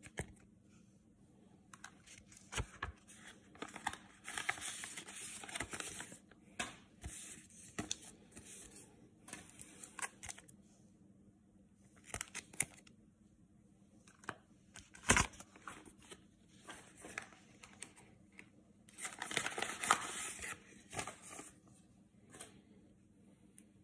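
Plastic card sleeves and rigid card holders being handled: intermittent rustling and crinkling, with two longer spells about four and nineteen seconds in, and a single sharp click about fifteen seconds in.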